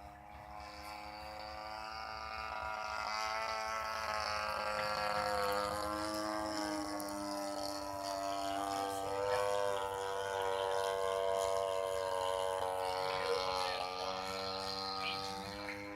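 Engine of a large radio-controlled model airplane running in flight: a steady engine note whose pitch wavers gently as the plane moves. It grows louder over the first few seconds.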